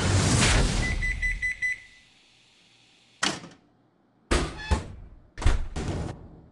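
Cartoon sound effects: a loud rushing noise dies away, a quick run of about five short high beeps follows, then after a pause come five sharp knocks with a slight ring.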